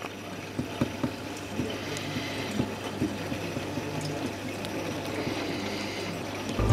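Aquarium filter and pump running: a steady trickle of water over a low hum, with faint irregular clicks scattered through it.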